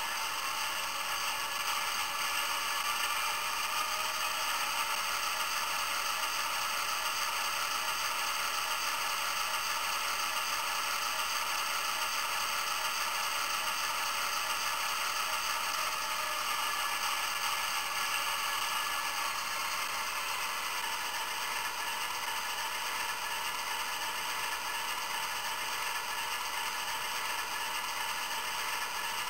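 ESU LokSound sound decoder in a Hornby OO gauge Class 60 model locomotive playing a diesel engine running sound through its small 23 mm speaker. The sound is steady, and the locomotive is standing still.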